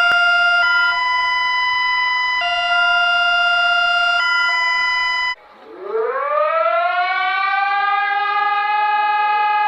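Emergency alert audio: a loud electronic alert tone, a chord of steady pitches that switches back and forth between two settings about every two seconds, cuts off about five seconds in. After a brief drop, a siren winds up from a low pitch to a steady high tone and holds it.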